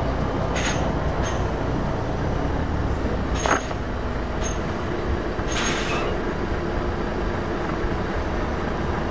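Slow-moving truck traffic: the diesel engine of a Volvo FH tractor unit pulling a trailer runs at low speed in a crawling queue, a steady low rumble. Several short hisses break in during the first half.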